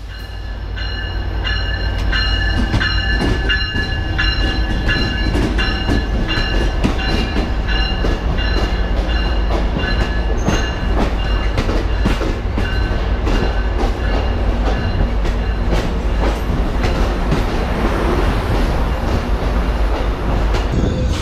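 Amtrak Pacific Surfliner passenger train, led by a diesel locomotive, rolling slowly in along the platform. A heavy low rumble runs throughout, with wheels clicking over the rails, and a high steady metallic squeal fades out a little past the middle.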